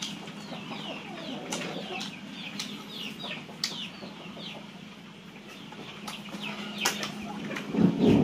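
Chickens clucking, with many short high peeps that fall in pitch, over a steady low hum. There are a few sharp clicks, and a louder low sound swells near the end.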